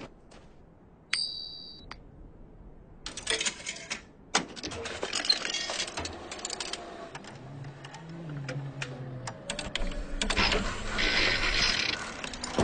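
Cartoon sound effects: a short high ding about a second in, then busy clicking and clattering, with a low mumbling voice in the middle and a louder rattling burst near the end.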